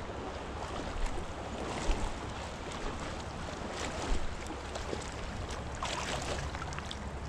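Shallow river current running over rocks, with wind rumbling on the microphone and a few brief splashes as a small trout is landed in the shallows.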